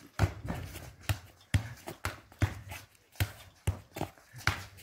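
A football being kicked and bouncing on stone paving during a rally, heard as a string of sharp knocks about every half second, mixed with shoe scuffs and footsteps.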